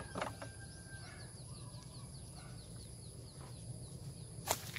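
Small birds chirping over and over in short, falling high notes, against a steady high-pitched whine. Two sharp clicks stand out, one just after the start and a louder one near the end.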